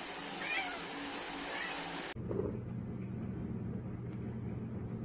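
A cat inside a cardboard box gives two short, high meows, about half a second and a second and a half in. After a sudden change a little past two seconds, a steady low rumble follows: a tabby cat purring while being petted.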